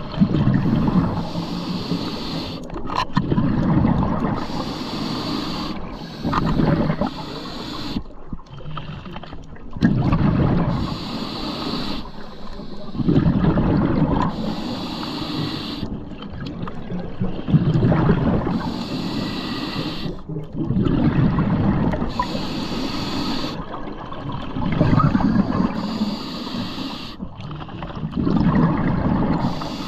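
Scuba diver breathing through a regulator underwater: a hiss on each inhale, then a burst of gurgling exhaust bubbles on each exhale, about one breath every three to four seconds.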